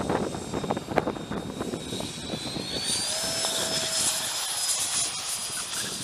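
Twin electric motors and propellers of a Dynam Cessna 310 RC model plane whining, the whine rising in pitch about two seconds in and then holding steady, with wind buffeting the microphone at first.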